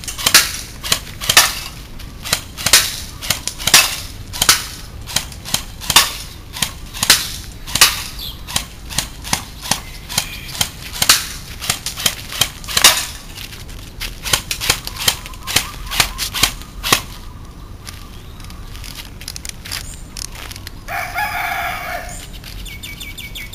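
JingGong MAC-10 electric airsoft gun firing single shots, a sharp crack every half second to a second, growing fainter after about eight seconds as the shooter moves away; the shots stop about seventeen seconds in. Near the end a rooster crows once.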